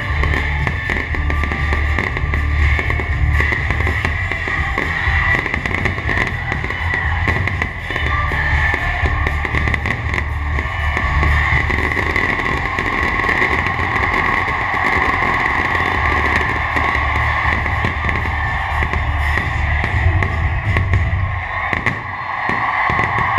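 Fireworks bursting in quick succession, heard together with rock music with drums and guitar. The low rumble drops away near the end.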